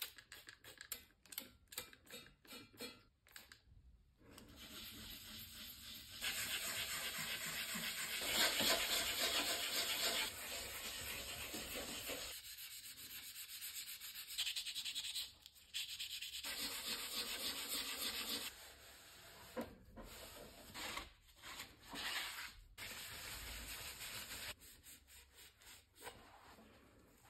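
Hand wet-sanding of a lamp's painted metal tube with a sanding block: a rasping scrub of quick back-and-forth strokes in long runs, loudest in the middle, then softer rubbing as the tube is wiped with a cloth near the end.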